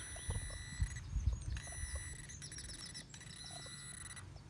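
Metal detector sounding a steady high electronic tone while pinpointing a target in the soil. The tone cuts out briefly about a second in and again near the end. A few faint bird chirps and soft low thumps are heard as well.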